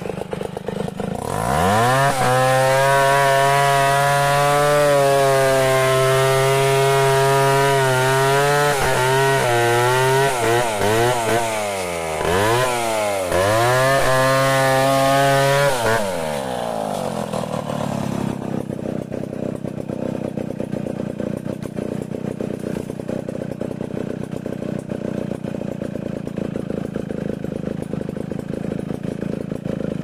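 Two-stroke chainsaw revving up about a second in and running at full throttle through a log, its note sagging and recovering several times as the chain bites under load. Around halfway it drops back and settles to a steady idle.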